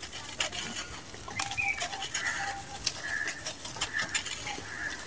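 Dry sand-cement chunks being crushed and crumbled by hand: a steady run of gritty crunches and sharp crackles as the pieces break and the grit pours away. Short animal calls sound several times in the background.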